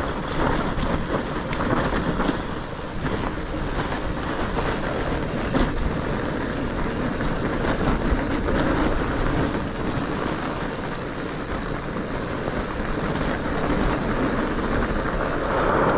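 Fat bike on studded tyres riding down a snowy, icy trail: a steady rumble of the tyres on packed snow with the rattle and clatter of the bike over bumps.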